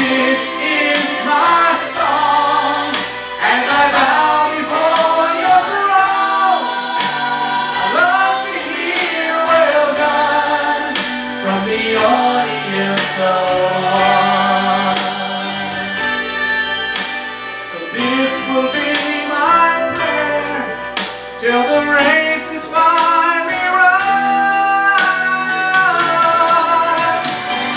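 Man singing a gospel-style Christian solo through a handheld microphone over instrumental accompaniment, with long held and sliding notes.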